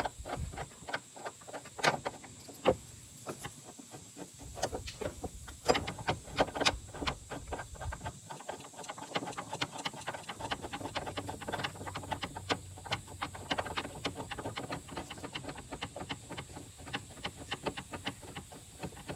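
Light metallic clicks and taps as a bolt on a Nissan VQ35 torque rod mount is tightened by hand. They are scattered at first and come in quicker runs from about halfway through.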